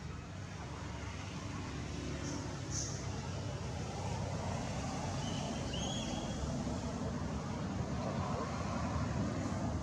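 Steady low rumbling background noise that grows slightly louder, with a brief high chirp about six seconds in.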